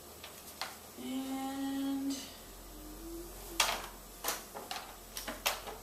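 A man's drawn-out, hummed "and", then a string of sharp clicks and knocks from handling the controls of a Panasonic Jet Force upright vacuum, the first click the loudest. The vacuum's motor is not running.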